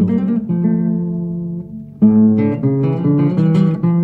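Acoustic guitar accompaniment: a chord rings out and slowly fades, then about two seconds in a new phrase of quickly struck notes begins.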